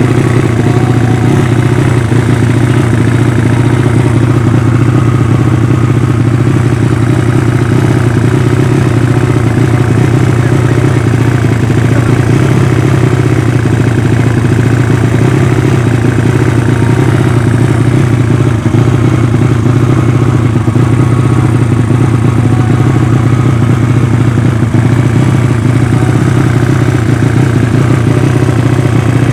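Yamaha Vega ZR engine, converted to about 200cc with a Yamaha Mio cylinder, running at a steady idle through an exhaust too small for it. The carburettor is still being set, and the builder judges the mixture lean.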